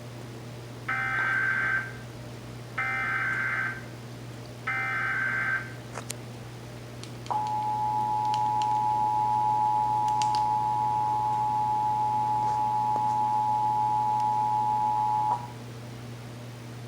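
Emergency Alert System SAME header: three bursts of buzzing digital data, each about a second long. About a second and a half later comes the two-tone EAS attention signal, held steady for about eight seconds, marking the start of a Required Monthly Test alert. A low steady hum runs underneath.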